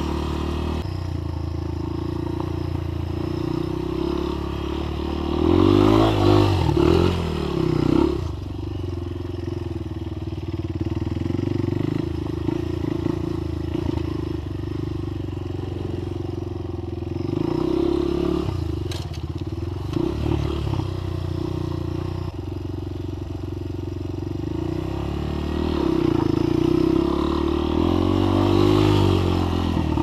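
Honda dirt bike engine running under way, heard from on the bike, its revs rising and falling with the throttle; it is revved hardest three times, about a fifth of the way in, around the middle and near the end.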